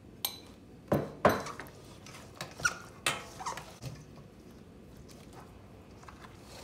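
Hands tossing and squeezing raw chicken drumsticks in cornstarch in a stainless steel bowl: a string of sharp, irregular slaps over the first four seconds, then softer mixing.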